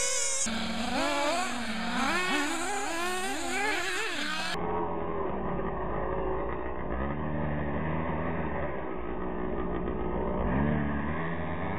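Two 1/8-scale nitro RC buggies' 3.5 cc glow engines revving up and down with the throttle as they race, pitch rising and falling every second or so. The sound changes abruptly twice, about half a second and about four and a half seconds in, where the footage cuts.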